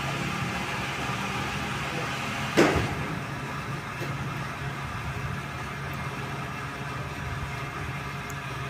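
Yamaha Lander 250's single-cylinder engine running steadily, with one sharp thump about two and a half seconds in.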